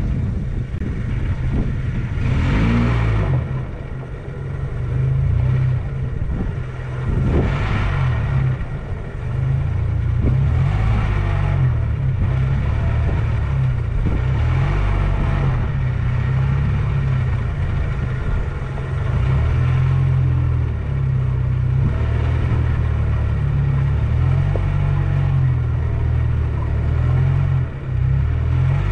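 Toyota Hilux 4x4 driving off-road, its engine a steady low rumble that swells briefly four times in the first half as it is revved or pushed.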